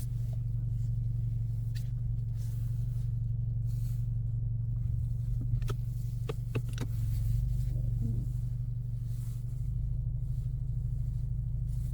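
2024 Ford Mustang EcoBoost's turbocharged 2.3-litre four-cylinder running at low speed while the car parks, a steady low hum. A few light clicks come about halfway through.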